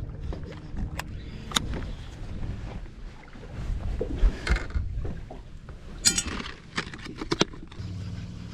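Scattered clicks, knocks and clatter of gear being handled on a bass boat's deck, over low wind and water noise. Near the end a steady low boat-motor hum starts.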